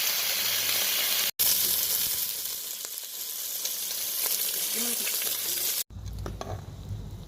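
Bacon sizzling as it fries in a pan: a dense, steady hiss. It drops out for an instant about a second in and cuts off just before six seconds, giving way to a quieter low rumble and a few light clicks.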